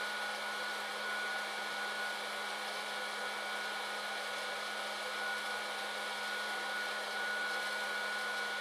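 West Bend Poppery hot-air popcorn popper's blower running steadily as it roasts coffee beans, a constant rush of air with a steady high whine and a low hum.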